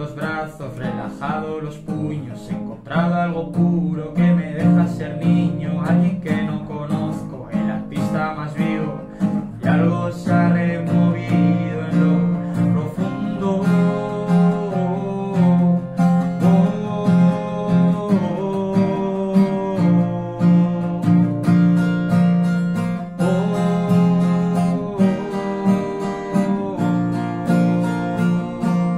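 Acoustic guitar played live, strummed chords with a steady rhythm, with a man singing over it through parts of the song.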